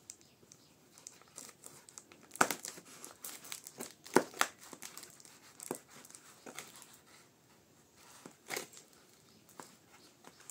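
Scissors snipping through clear packing tape on a small cardboard box, with crinkling of the tape as it is cut; irregular sharp snips, the loudest about two and four seconds in.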